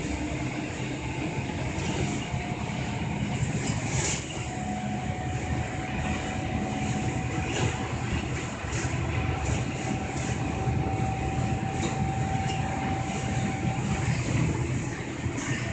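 City route bus driving at steady speed, heard from inside the cabin: a steady rumble of engine and road noise, with a thin steady whine through the middle and a few light rattles.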